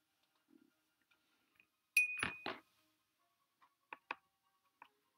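Watercolour painting tools being handled off the paper: a sharp clink with a brief ringing tone about two seconds in, then a couple of knocks and a few lighter clicks.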